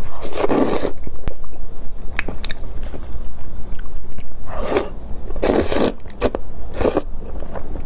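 Close-miked slurping and chewing of a mouthful of spicy noodles: a loud slurp about half a second in and three more between about four and a half and seven seconds, with wet chewing and lip smacks in between.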